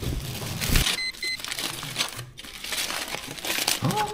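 Plastic bag and aluminium-foil food wrapping crinkling and rustling irregularly as delivered takeout is unpacked and unwrapped by hand.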